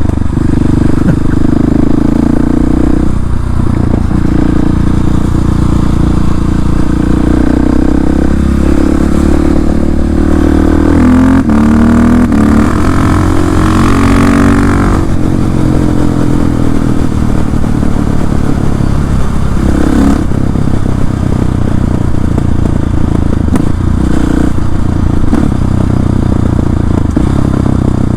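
KTM 690 SMC-R single-cylinder engine running loud through an Arrow exhaust with its dB-eater removed, while the bike is ridden. About a third of the way in the revs climb for around four seconds under acceleration, then drop away.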